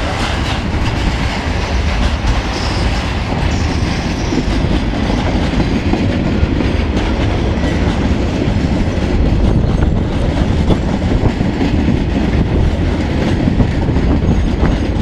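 Container flat wagons of a long freight train rolling past, their steel wheels running over the rails in a steady, continuous rolling noise.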